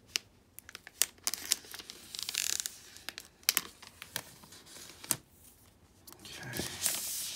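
Protective wrap being peeled off a tablet: crinkling and tearing with scattered sharp clicks, and a longer peeling rip a little over two seconds in and another near the end.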